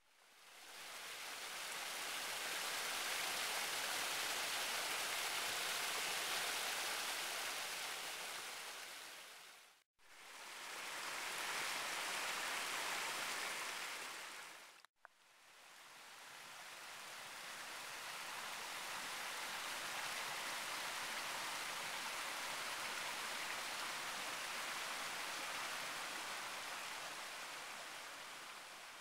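Creek water flowing over rocks, a steady rushing, heard in three stretches that each fade in and out, with short breaks about ten and fifteen seconds in.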